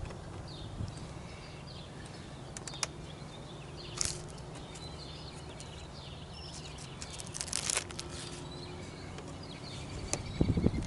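Handling noise from a clear plastic motorcycle windscreen being pressed onto its rubber mounts by hand: crinkling of its protective film, brief rustles and knocks about 4 s in and around 7.5 s, and the loudest knock near the end.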